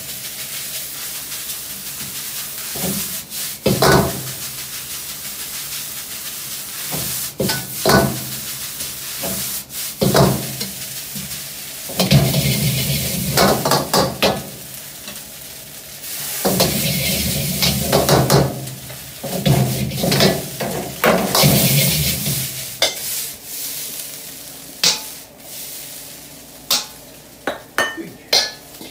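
Fried rice being stir-fried in a steel wok over a gas burner: steady sizzling, with the metal ladle repeatedly scraping and clanging against the wok. About three quarters of the way through the sizzling fades, leaving scattered clinks of the ladle and dishes as the rice is plated.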